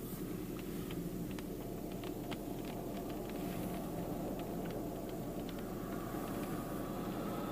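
Steady low rumble of a car, with scattered irregular sharp ticks of rain or hail striking it, about a dozen over several seconds.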